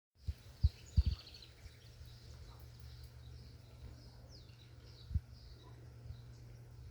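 Small birds chirping outdoors, with a quick run of chirps about a second in and a falling whistle near the middle, over a steady low rumble. A few dull low thumps stand out near the start and once about five seconds in.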